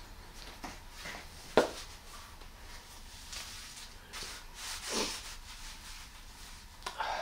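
Handling noise: cloth rustling as a visor cap is pulled on and adjusted, with a single sharp click about a second and a half in.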